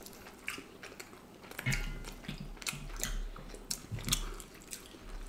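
Close-miked chewing and wet mouth sounds of people eating duck curry by hand, with scattered short smacks and clicks.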